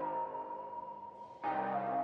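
Background music: sustained, held notes, with a new note coming in about one and a half seconds in.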